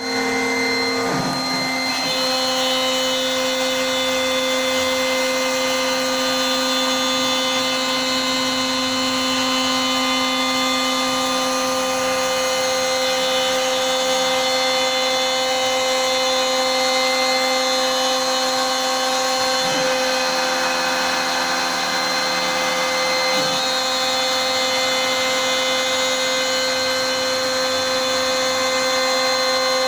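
CNC router spindle running with a steady, many-toned whine as it cuts MDF. Its pitch steps up about a second and a half in, and the tones briefly waver a couple of times later on.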